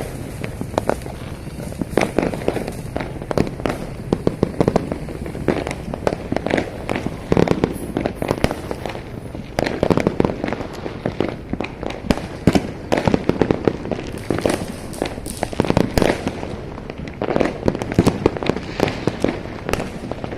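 Many fireworks and firecrackers going off at once, a continuous irregular rattle of overlapping pops and bangs with no break.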